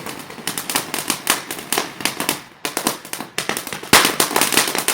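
TNT Yellow Lightning fountain firework burning, a steady hiss with dense, rapid crackling pops. The crackling eases off briefly about halfway, then comes back louder near the end.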